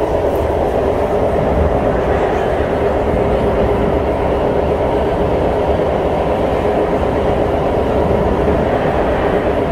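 SMRT C151 metro train running at speed, heard from inside the passenger car: a steady, loud rumble of wheels on track with a constant hum.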